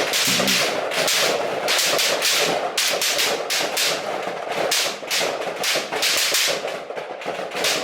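Rifles firing along a firing line: many sharp shots in quick, irregular succession, several a second and often overlapping, from shooters firing together at the 100-yard line.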